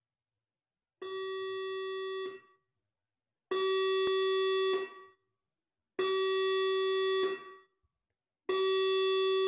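Building fire alarm sounding its buzzing alert tone: four long blasts of about a second and a quarter each, one every two and a half seconds, the first a little quieter.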